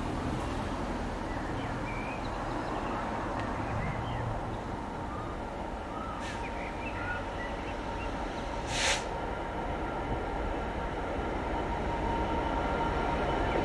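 Class 66 diesel-electric locomotive, with its two-stroke V12 diesel, approaching slowly at the head of a train of engineers' wagons, its engine rumble growing louder toward the end. A short hiss about nine seconds in, and faint bird chirps over it.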